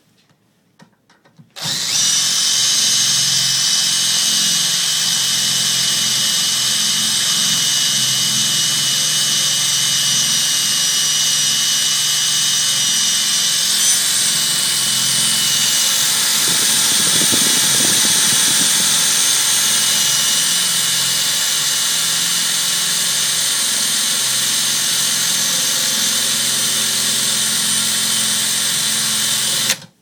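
Cordless drill running steadily, its bit boring into the keyway of a Cyberlock puck-lock cylinder and grinding against the hardened steel pins that stop it getting through. It starts a couple of seconds in and cuts off suddenly just before the end.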